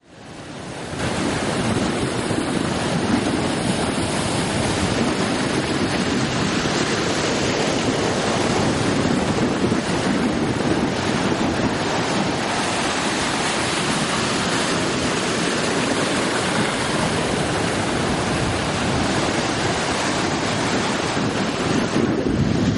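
Steady wind rushing over the microphone, mixed with surf breaking and washing against the rocks of a jetty. It fades in over about the first second.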